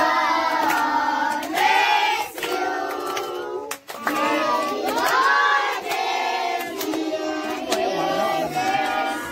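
A group of children singing together, with hand clapping.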